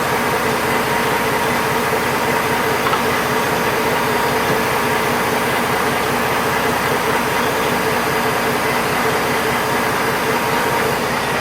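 Semi truck's diesel engine idling, a steady, unchanging hum.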